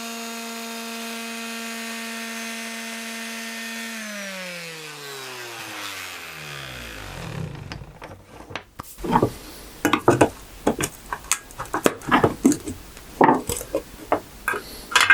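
Electric sander running steadily, then switched off about four seconds in, its motor winding down with a falling whine over a few seconds. After that come irregular knocks and clatter of wooden parts and tools being handled.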